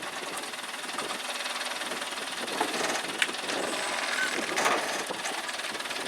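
Heavy machinery engine running steadily with a hissing noise, with a couple of short sharp knocks about three seconds in and again near five seconds.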